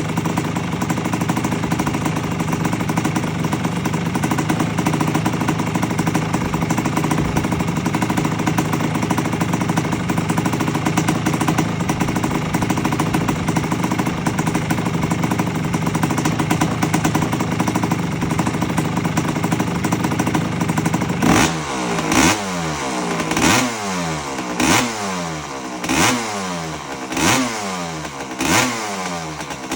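1984 Honda CR250's single-cylinder two-stroke engine idling steadily, then revved in about seven quick throttle blips a little over a second apart, the pitch falling back after each.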